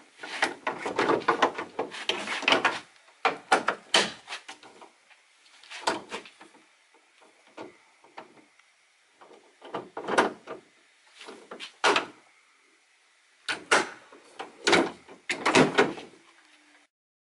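Folding metal outrigger and oar on a sliding-seat rowing skiff being swung in and out by hand: about six bursts of clattering and knocking, with short quiet gaps between them.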